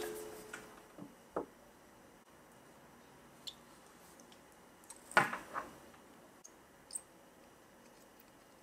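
Faint scattered clicks and taps from fingers, a small metal plug and a soldering iron being handled while wires are re-soldered onto the plug. The loudest little cluster of clicks comes about five seconds in, with quiet room tone between.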